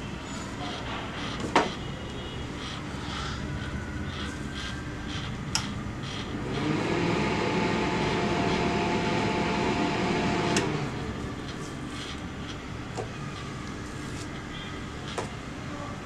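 Steady background hum. About six seconds in, a louder rumble with a steady whine swells up, holds for about four seconds and fades. A few sharp clicks, the loudest about a second and a half in.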